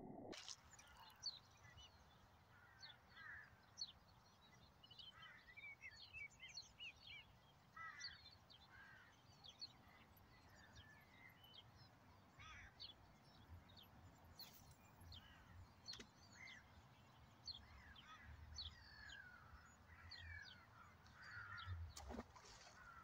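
Faint birdsong: many short chirps and calls from small birds overlapping all through, over a light low rumble. One sharp click near the end.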